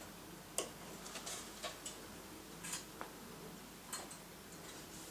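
Light, irregular clicks and taps from hands handling a CPU cooler's small mounting parts on a PC test bench, with about eight scattered sharp ticks and the loudest one near the start.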